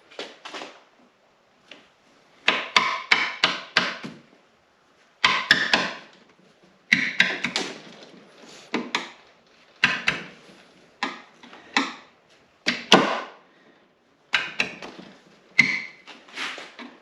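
Irregular clusters of clicks, knocks and rattles from hand work: parts and tools being handled while a new rubber side-panel latch strap is fitted to the snowmobile.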